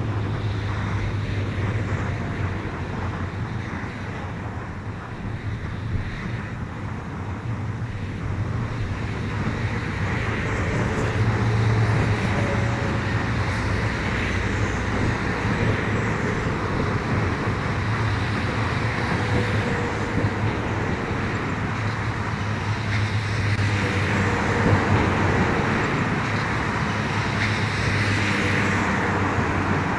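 Steady motorway traffic noise with a low hum, trucks and cars running past, and some wind on the microphone. A faint whine slowly falls in pitch midway through.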